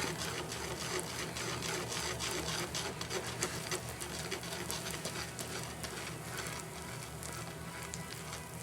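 Microwave oven running with a steady low hum while a molten flux charge in a crucible inside it crackles and sizzles with many fine, rapid pops as it smelts.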